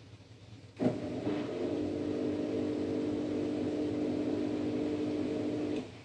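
A steady machine hum that switches on with a click about a second in, runs evenly, and cuts off shortly before the end.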